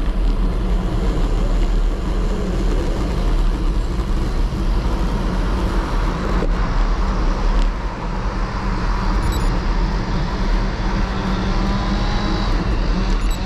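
Steady wind rush on a bike-mounted camera's microphone, with the hum of tyres rolling on tarmac, as a road bike is ridden along.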